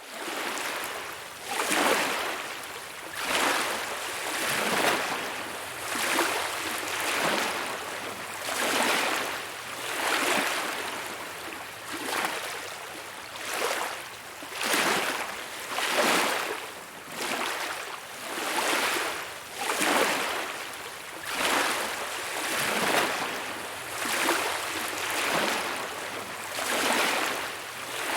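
Small waves lapping on a beach, each wash swelling and falling back in a steady rhythm, about one every one and a half seconds.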